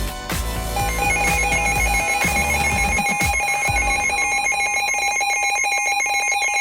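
Emergency Alert System attention tone: a loud, steady electronic alarm that starts about a second in and sounds like a rapidly warbling two-tone ring, the signal that comes just before a spoken weather alert.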